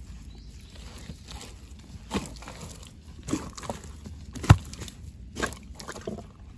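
Hands digging wet mud out of a mud crab's burrow: about half a dozen short thumps and squelches from about two seconds in, the loudest about halfway through, over low rustling.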